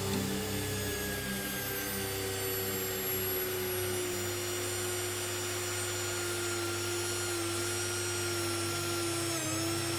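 Wood router running steadily as it flattens an oak slab on a router sled. Its motor pitch sags slowly under load, with a brief dip near the end.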